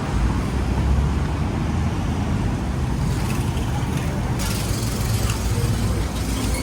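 Motor vehicle traffic: a steady low rumble of engines and tyres, with a brighter hiss joining about two thirds of the way through.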